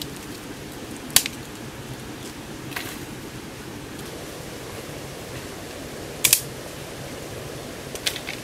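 Dry sticks and twigs snapping and clattering as firewood is picked up by hand: a few sharp cracks, the loudest a double crack about six seconds in, over a steady background hiss.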